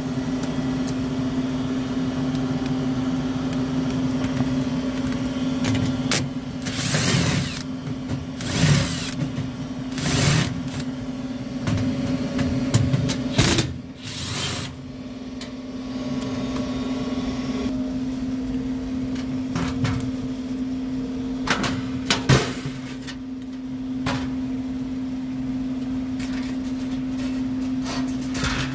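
Milwaukee cordless driver running in several short spurts of about a second each as it backs out the furnace cover screws, followed by a few sharp metallic knocks as the sheet-metal cover panel is handled. A steady low hum runs underneath.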